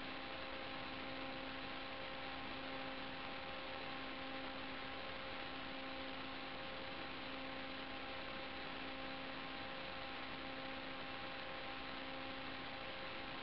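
Steady hiss with a constant hum from the audio track of an analog FPV video recording.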